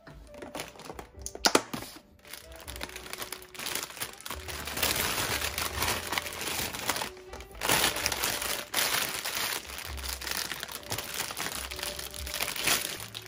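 Thin plastic produce bag crinkling and rustling as bell peppers are handled and pulled out of it, with one sharp click about a second and a half in.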